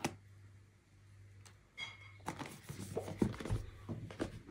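Hands working at a small cardboard product box. A tap comes at the start, then a brief squeak, then scraping and rustling with small knocks from about two seconds in.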